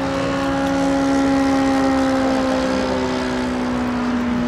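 Self-built RC model airplane's motor and propeller droning steadily in flight, the pitch sinking slightly over the last couple of seconds.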